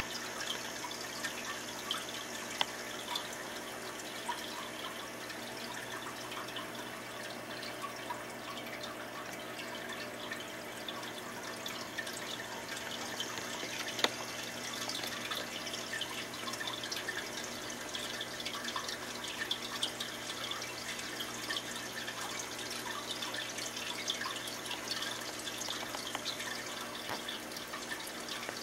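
Aquarium water trickling and bubbling steadily over a low hum, with a sharp click about halfway through.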